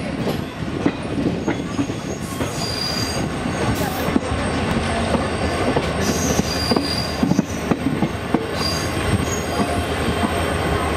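Passenger train coach rolling over the track, heard from its doorway: a steady rumble and clatter of wheels on rails. Short, high-pitched metal squeals come in several times.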